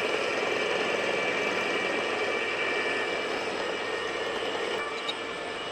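A metalworking machine tool running steadily through a cut in metal. The noise eases a little near the end, with a small click about five seconds in.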